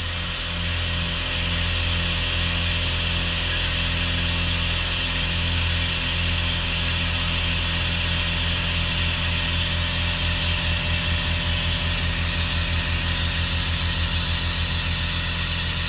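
Air-powered venturi vacuum brake bleeder running with its trigger held: compressed air hisses steadily through it as it draws brake fluid and air bubbles out through the rear caliper's bleed nipple.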